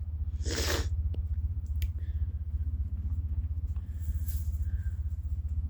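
Steady low rumble, with a brief loud rustle about half a second in and a fainter hiss near four seconds.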